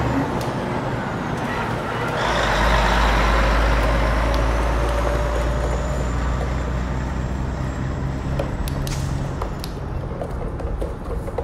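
Heavy truck engine running steadily with a deep rumble and a thin high whine. It gets louder about two seconds in and eases off near the end.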